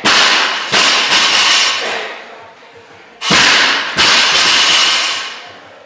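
Loaded barbells dropped onto a concrete floor: four heavy crashes in two pairs about three seconds apart, each followed by a long clattering ring of the plates.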